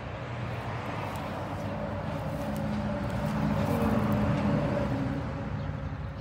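A motor vehicle passing by, its engine and tyre noise swelling to a peak about four seconds in and then fading.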